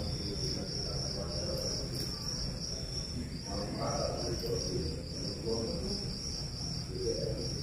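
Steady high-pitched insect trill, slightly pulsing, with faint murmuring voices underneath.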